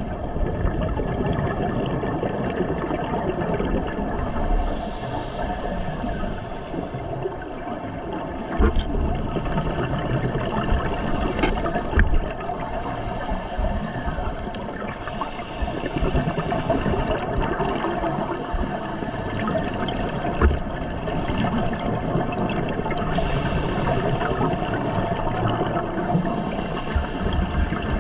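Underwater sound through a dive camera's housing: a steady muffled rush of water, with scuba exhalation bubbles rising every few seconds.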